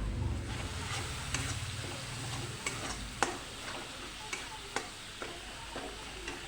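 Ginger-garlic paste and chilli powder frying in oil in a pan with a light sizzle, while a spatula stirs. The spatula knocks against the pan in irregular clicks, the sharpest about three seconds in.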